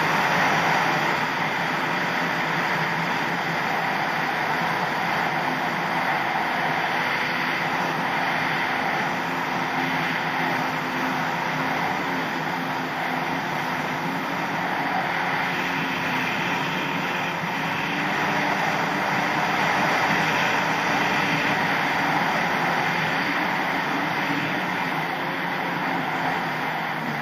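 Yamaha SuperJet stand-up jet ski's two-stroke engine running steadily under way, swelling a little louder past the middle.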